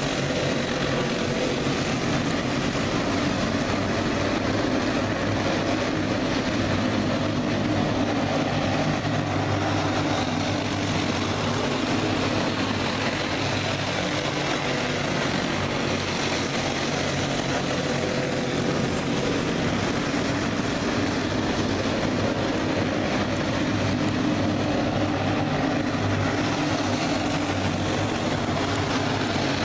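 A pack of clone-engine dirt-track racing karts running laps together. Their small single-cylinder four-stroke engines make a steady, continuous drone that rises and falls as the pack circles the oval.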